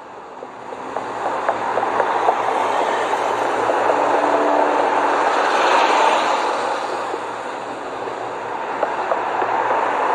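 City street ambience with traffic noise, fading up over the first two seconds and then holding steady, with scattered small clicks and a few short faint tones.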